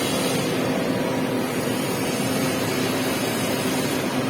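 Industrial sanding machine running steadily: a constant hum over even mechanical noise, with no change in pace or level.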